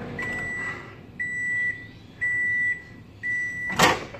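Over-the-range microwave oven finishing its cook cycle: the running hum cuts out, then four long, even beeps about a second apart signal the end of the cycle. Near the end the door latch releases with a loud click as the door is opened.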